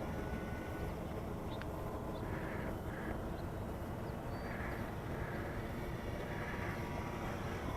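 Electric RC P-47 warbird's 3128 1550 kV brushless motor and four-bladed propeller buzzing faintly at a distance, coming and going as the plane flies about, over a steady low rumble.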